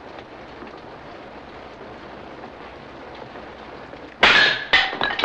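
A steady background hiss, then about four seconds in a sudden loud clatter of dishes and cutlery, several sharp strokes with a brief ringing.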